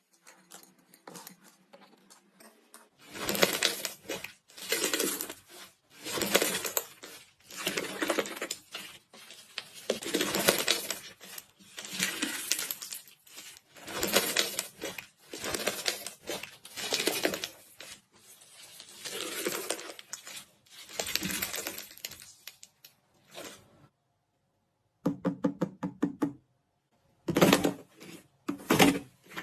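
Crispy iceberg slime being squeezed and pressed, its crusted surface crackling and crunching in repeated bursts about once a second. Near the end a quick run of small sharp clicks.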